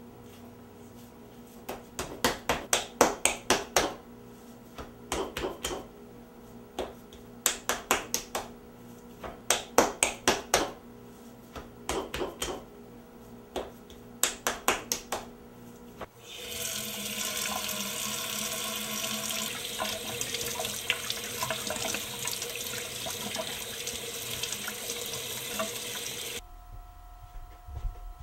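Bursts of rapid slapping taps in quick groups of about a second each, then a faucet running steadily into a sink for about ten seconds before cutting off.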